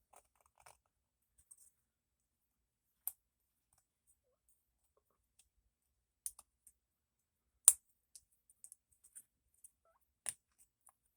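Faint, scattered metallic clicks and taps as an electrician's knife's parts are fitted together on their pins. One sharp click about two-thirds through is the loudest.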